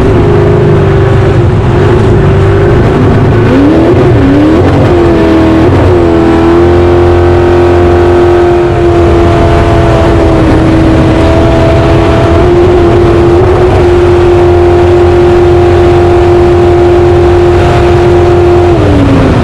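Race jet boat's engine running at high revs, its pitch dipping and climbing several times in the first six seconds, then held steady at full throttle before dropping away near the end.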